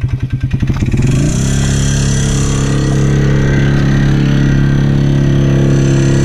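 ATV engine chugging at low revs, then revved up about a second in and held at steady high revs.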